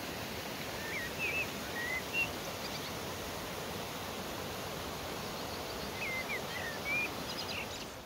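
Small creek waterfall rushing steadily over rocks, with a songbird singing two short bursts of quick whistled chirps, about a second in and again about six seconds in.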